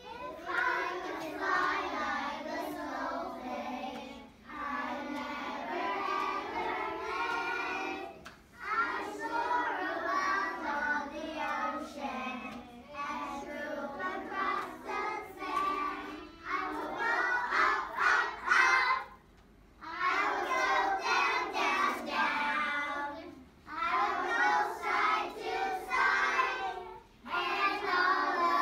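A class of young children singing a song together in unison. They sing it phrase by phrase with short breaks between, and there is a longer pause about two-thirds of the way through.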